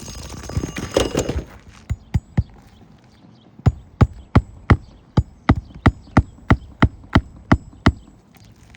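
Hammer driving roofing nails into a new asphalt shingle: three quick blows, a pause, then about a dozen evenly spaced blows, roughly three a second. It is preceded by a second of scraping and rustling.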